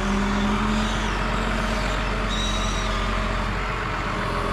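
A vehicle engine running steadily with a constant low hum, and a brief high whine about halfway through.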